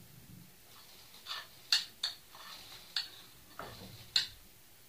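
Kitchenware being handled: four sharp clinks spread across the few seconds, with a few softer knocks between them.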